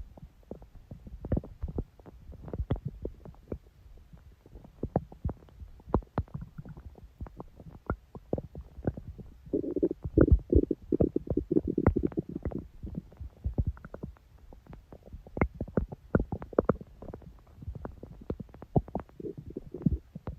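Human stomach growling and gurgling: a run of short pops and squelches over a low rumble, with a longer gurgle about halfway through and another brief one near the end.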